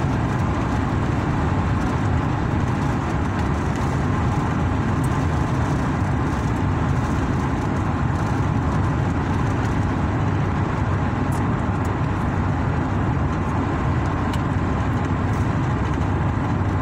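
Steady engine and tyre noise heard inside the cabin of a GMC vehicle cruising along a highway.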